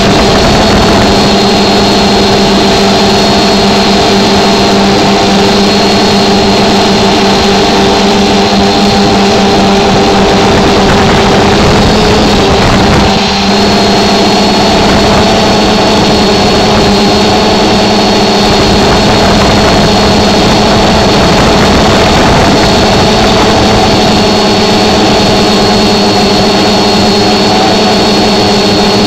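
Drone's electric motors and propellers running, heard from on board: a loud steady hum of several held tones with a thin high whistle over it, dipping briefly about 13 seconds in.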